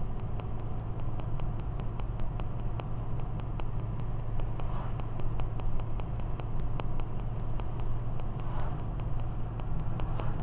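Car cabin noise while driving at a steady speed: a low engine hum and tyre noise on the road. A faint, regular ticking about four times a second runs through it.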